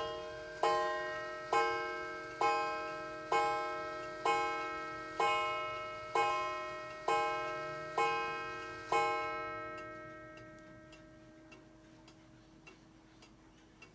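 Junghans pendulum wall clock striking the hour: ten identical ringing blows about one a second, each ringing on into the next. After the last blow about nine seconds in, the ringing fades and the clock's faint ticking carries on.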